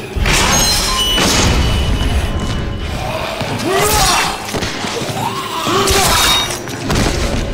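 A man screams and yells in rage amid heavy thuds and crashes of a violent struggle, with a deep rumble underneath. It begins with a sudden loud hit, and the two longest screams come in the middle and near the end.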